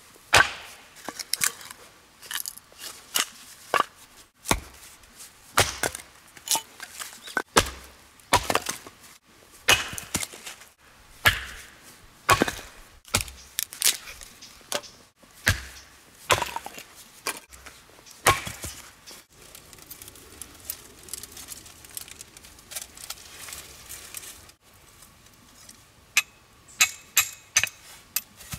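Axe chopping wood: sharp, irregular chops, one or two a second, then a quieter pause and a quick run of lighter knocks near the end.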